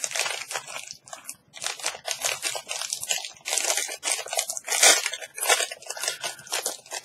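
Protein bar wrapper being torn open and crinkled by hand: irregular crackling throughout, with one sharper, louder crackle about five seconds in.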